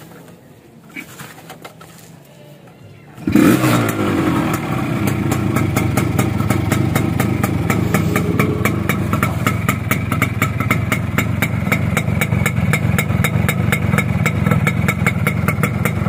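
1991 Kawasaki GTO 125's single-cylinder two-stroke engine starting about three seconds in, catching with a quick rise in revs that drops back, then running steadily at idle with a fast, even beat.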